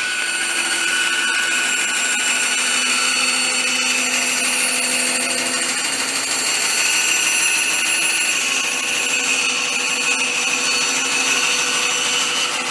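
Bandsaw running steadily while it cuts a curved line through a wooden board.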